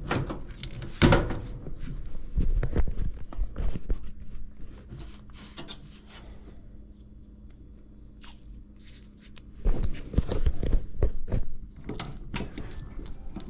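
A run of knocks, clunks and rattles from hands-on work on a metal furnace cabinet, busiest at the start and again about ten seconds in, with a faint steady low hum between them.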